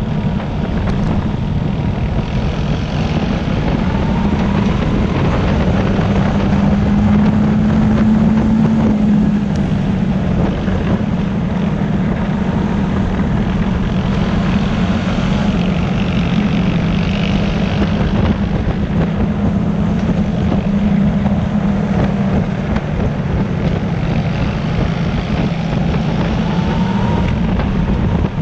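ATV (quad bike) engine running steadily as it drives along, its pitch rising briefly around six to nine seconds in, then settling.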